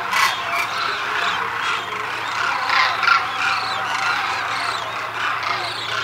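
A large flock of demoiselle cranes calling all at once: a dense chorus of many overlapping short calls, each rising and falling in pitch.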